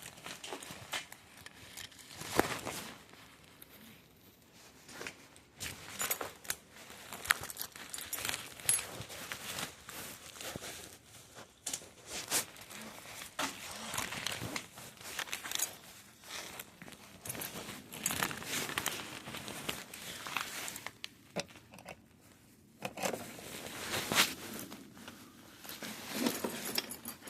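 A mailed package being handled: irregular crinkling and rustling of packaging, with scattered sharp clicks and knocks.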